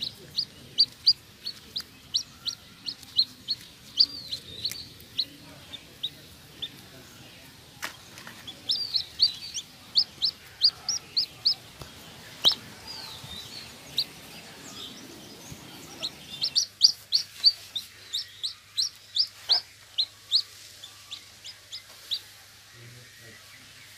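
Newly hatched chick peeping: rapid runs of short, high peeps with brief pauses between them.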